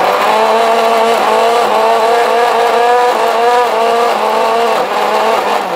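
Electric mixer grinder (mixie) grinding a wet masala paste with a little water. Its motor gives a steady hum and a whine whose pitch wavers slightly as the load shifts. It is switched off near the end.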